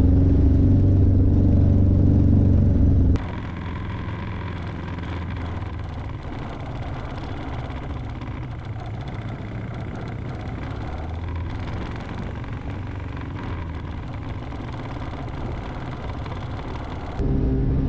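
The Avid MKIV's two-stroke snowmobile engine running steadily with the propeller turning, warmed up to operating temperature. It is loud and droning inside the cabin for the first three seconds and again near the end; in between it is quieter and noisier, heard from behind the tail.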